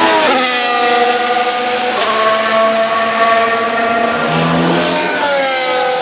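Formula 1 car's 1.6-litre turbocharged hybrid V6 engine running at high revs, loud and steady in pitch between sudden changes. The pitch drops sharply just after the start, steps up about two seconds in, and slides down again near the end.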